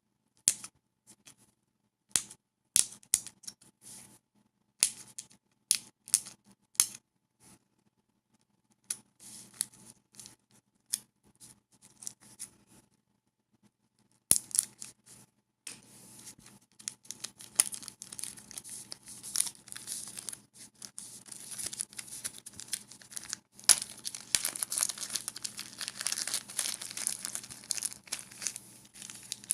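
Skateboard wheel packaging being handled, crinkling and tearing: scattered sharp crackles for the first dozen seconds, then a busy, continuous crinkling rustle from about fourteen seconds in.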